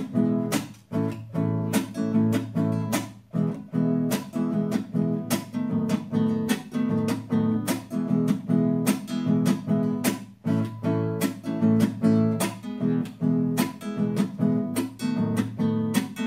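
Nylon-string classical guitar played in the Nicaraguan son nica rhythm in 6/8. Strummed chords alternate with percussive slaps of the palm against the strings, in an even repeating pattern.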